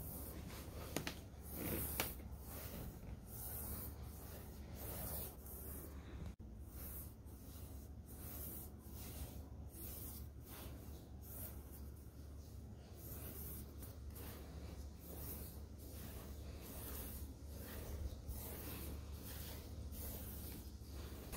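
Varnish brush stroking across a painted canvas: faint, scratchy swishes repeated one or two a second, over a steady low hum.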